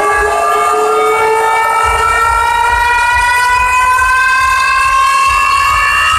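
Siren-like wail played at high volume through a huge truck-mounted carnival sound system (sound horeg). The tone rises slowly and steadily in pitch, over a rapid bass pulse that comes in about two seconds in.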